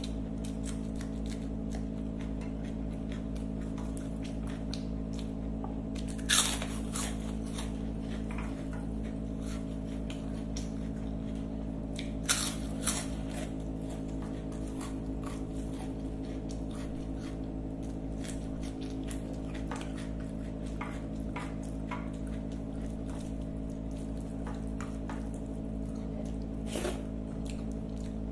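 A person eating rice and curry by hand: soft squishing of food mixed on the plate and chewing, with a few loud crunches, most likely crisp fried wafers being bitten, about six seconds in, twice around twelve seconds and once near the end. A steady low hum runs underneath.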